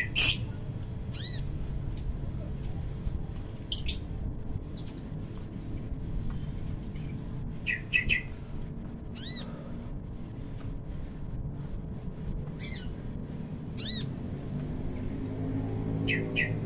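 Caged male kolibri ninja (sunbird) giving short, high-pitched calls, singly or in quick doubles, every one to few seconds; the loudest comes right at the start. A steady low rumble sits underneath.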